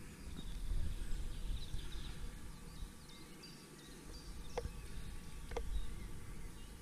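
Outdoor ambience with a low, gusting rumble of wind on the microphone, faint bird chirps, and two sharp clicks about a second apart past the middle.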